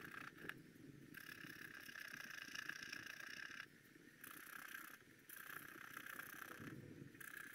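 Wooden stylus scratching the black coating off a scratch-art sticker sheet: a faint, fine, steady rasping in stretches, broken by two short pauses about four and five seconds in.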